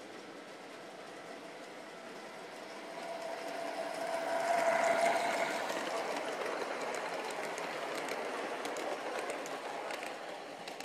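LGB G-scale model trains running on brass track: a steady rolling hum with light clicking of wheels over the rail joints. It swells to its loudest, with a whine, as a train passes close about halfway through, then slowly eases off.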